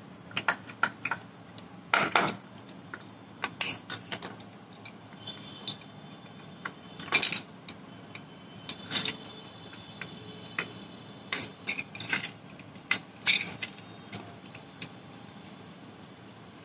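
Irregular metallic clicks and clinks of a ring spanner working the nuts on a tractor starter motor's end housing, with metal tools and parts knocking as they are handled.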